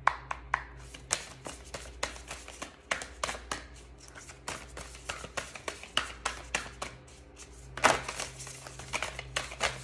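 A deck of oracle cards being shuffled by hand, overhand: a steady run of sharp card clicks and flicks, several a second, with a denser flurry about eight seconds in.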